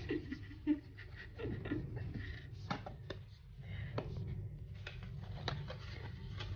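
Cardboard jewellery box being opened by hand: scattered soft clicks and rustles as its flaps are pulled open.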